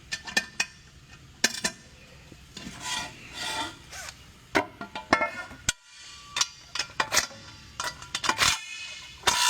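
Hand tools working the assembly bolts out of a three-piece racing wheel: metal clinking and scraping, with a string of sharp clicks.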